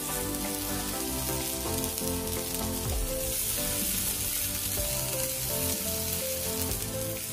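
Masala-coated raw banana slices sizzling in hot oil on a dosa tawa as they are laid down one after another; a steady frying hiss, with background music.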